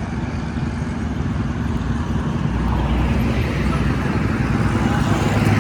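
A motor vehicle's engine running with a steady low rumble, growing louder over the last few seconds.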